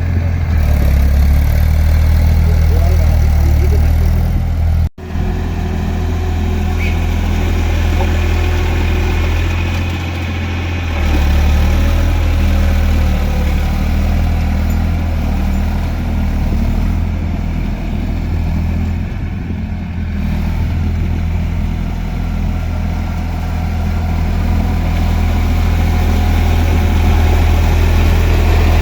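Eicher tractor's diesel engine running steadily under load while ploughing through mud. There is a sudden, very brief break in the sound about five seconds in.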